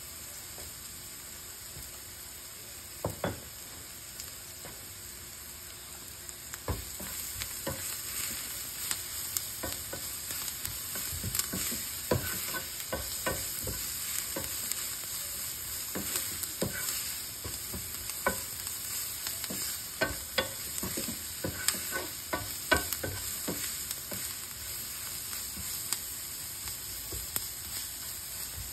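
Chopped onion, green chillies, curry leaves and garlic sizzling in oil in a non-stick frying pan, with a steady hiss. A couple of taps come about three seconds in. From about six seconds in, a spatula scrapes and taps against the pan as the mixture is stirred.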